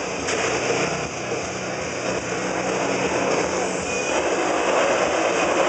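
Motorcycle engines revving as the bikes circle inside a steel-mesh globe of death, the pitch wavering with the throttle and growing louder about four seconds in.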